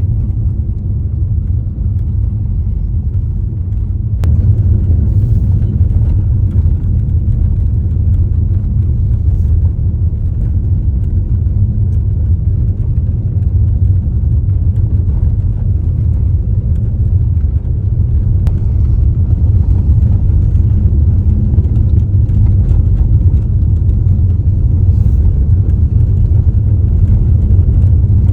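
Steady low rumble of a car on the move: road and engine noise with no change in pace.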